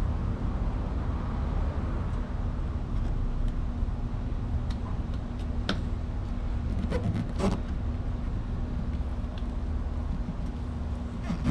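Steady low vehicle rumble with a constant hum, and a few light clicks and taps between about four and a half and seven and a half seconds in.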